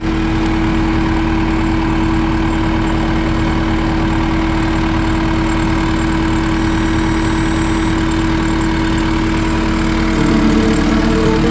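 Caterpillar 259D skid steer's diesel engine idling steadily, with a constant droning tone over it. Music comes in near the end.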